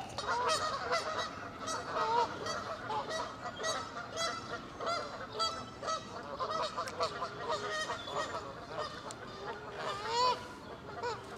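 Birds calling, most likely waterfowl: many short, pitched calls in quick succession, several overlapping.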